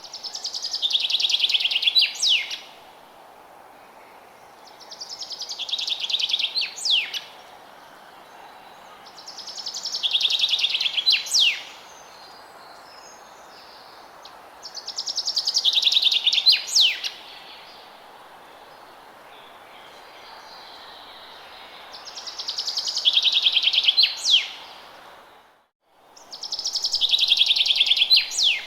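A songbird in a forest sings the same song six times, about every four to five seconds. Each song is a fast trill lasting about two seconds that grows louder and falls in pitch, then ends in a quick downward flourish. A steady faint outdoor hiss lies underneath, with a brief dropout to silence just before the last song.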